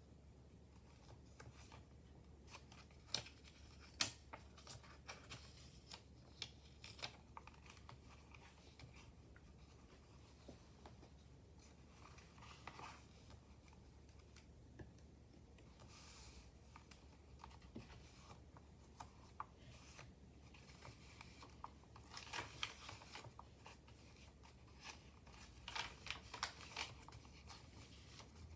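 Pages and paper embellishments of a handmade junk journal being handled and turned: soft, scattered rustles and light taps, a couple of sharper ones a few seconds in and busier rustling near the end, over a faint low hum.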